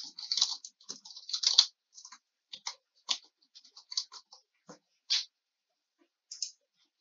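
Computer keyboard keystrokes clicking irregularly as a username and password are typed, then a single mouse click near the end.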